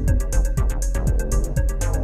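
Minimal techno played live on hardware synths and a sampler: a kick drum thumping about twice a second under fast, steady hi-hats and a synth bass line.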